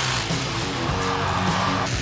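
Rock song with strummed guitar, played loud and steady.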